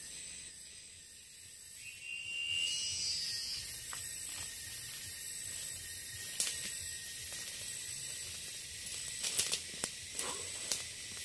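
Tropical forest insect chorus: a steady high-pitched drone and hiss, with a louder whining insect call joining about two seconds in. Near the end come a few sharp crackles of footsteps on dry leaf litter and twigs.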